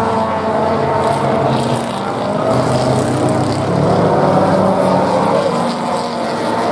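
A pack of 1960s saloon racing cars, from big American Ford saloons to Minis, accelerating through a corner one after another, several racing engines running at once with their pitches overlapping.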